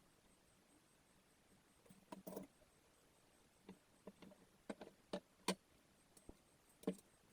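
Near silence broken, from about two seconds in, by about a dozen light, irregular clicks and taps from small objects being handled.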